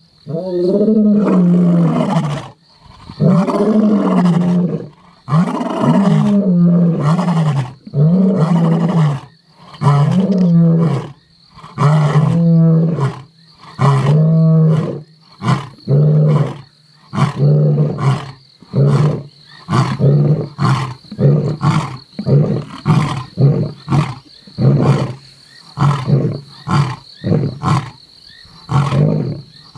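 Male lion roaring: a bout that opens with several long, deep roars of about two seconds each, then runs into a long series of short grunts, about one a second, getting shorter toward the end.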